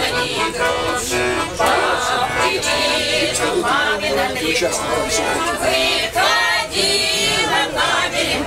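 A man and a woman singing a song live to a small button accordion (garmon).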